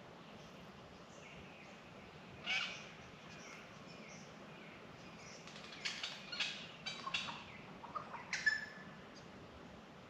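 Australian magpies calling: one harsh call about two and a half seconds in, then a run of short calls between about six and nine seconds in, the last one ending on a clear held note.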